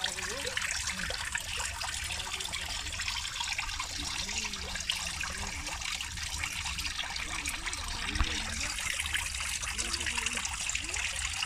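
A thin waterfall trickling and splashing steadily into a small rock pool.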